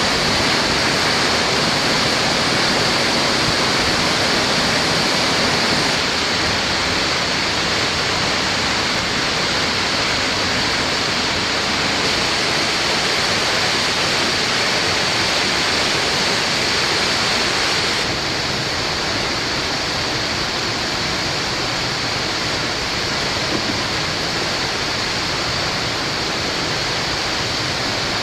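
Fast-flowing water rushing in a steady, even roar, shifting slightly in tone about six seconds in and dropping a little about eighteen seconds in.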